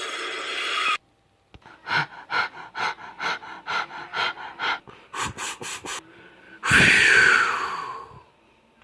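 A person's voice imitating a steam engine: breathy chuffs at about two or three a second that quicken, then a loud, long hiss with a falling pitch that fades away.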